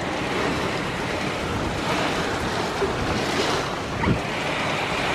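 Severe thunderstorm wind gusts with rain, a steady, dense rushing noise blowing across the microphone.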